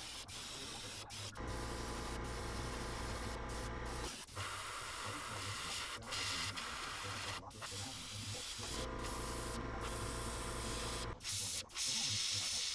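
Airbrush hissing as it sprays a white base coat, in spurts broken by brief stops. A steady motor hum comes in twice, for two or three seconds each time.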